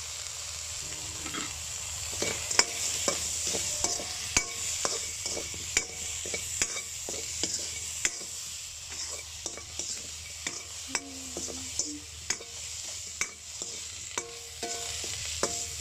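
Whole prawns sizzling in butter in a metal wok, with a steady frying hiss, while a utensil stirs them and knocks and scrapes against the wok in frequent sharp clacks.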